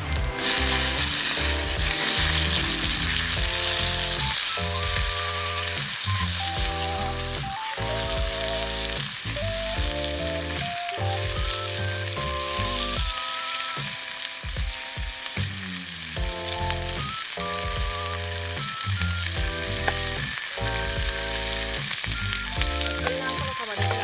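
Sliced raw meat sizzling in hot oil in a cast-iron skillet over a wood fire. The sizzle jumps up about half a second in as the meat goes into the pan, then holds steady while it is stirred with tongs. Background music with a slow melody plays along.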